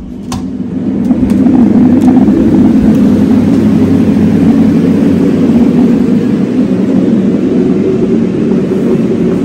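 Loud, steady low rushing noise from a running appliance, fading in over about the first second.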